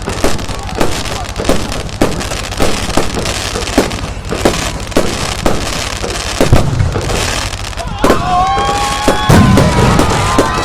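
Fireworks going off: a steady run of sharp bangs and pops, with two heavier deep booms about two-thirds of the way through and again near the end. From about eight seconds in, whistling shells add long whistles, several of them falling in pitch.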